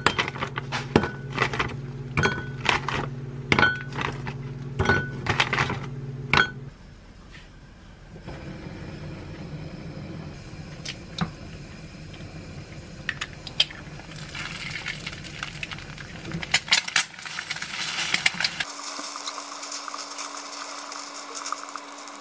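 Frozen shrimp tipped from a bag, clinking one by one into a glass bowl over a steady low hum: about a dozen sharp clinks in the first six seconds. Then an egg frying quietly in a ceramic frying pan, with a few light taps and a brighter sizzle near the end as it is scrambled with chopsticks.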